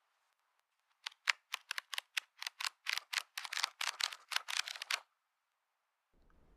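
Paper pages of a vintage magazine being handled and turned: a quick run of crisp, crackling rustles, about five a second, starting about a second in and stopping about four seconds later.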